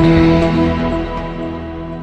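Intro music: a held chord of several sustained tones that fades away from about half a second in.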